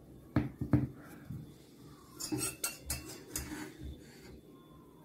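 Metal spoon clinking against a stainless steel pot while scooping melted butter and oil to spoon over dough, a quick run of clinks about two seconds in. A few dull knocks come just before, as the stacked dough rounds are pressed down on the plate.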